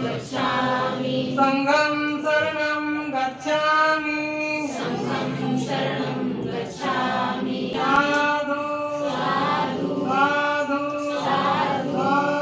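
A group of worshippers, mostly women, chanting Buddhist devotional verses together in unison, in held, sung phrases with short breaks for breath.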